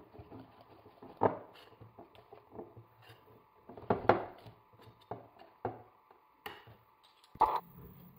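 Small metal wire whisk clicking and scraping against a porcelain plate as it stirs a thick spice paste, in irregular strokes with a few louder knocks. A sharper knock comes near the end.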